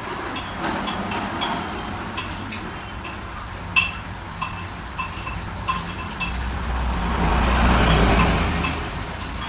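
Scattered sharp clicks over background noise, with a low rumble that swells about six seconds in and eases off near the end.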